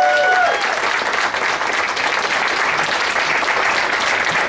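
A crowd applauding, with a few held high cheers over the first half-second.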